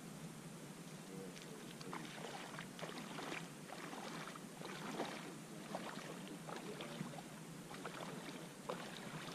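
Faint, irregular splashing of bare feet wading into a shallow, muddy river, over a soft steady hiss.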